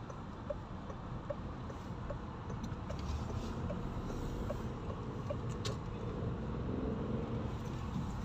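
Car running through wet streets, heard from the cabin as a steady engine and tyre rumble that grows louder as it picks up speed. A turn-signal indicator ticks about two and a half times a second during the turn and stops about five seconds in.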